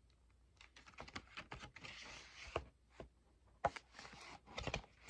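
Toy kit boxes and disc cases being handled: a string of sharp clicks and knocks, with two short stretches of rustling. The loudest click comes a little past halfway, and a quick cluster of knocks comes near the end.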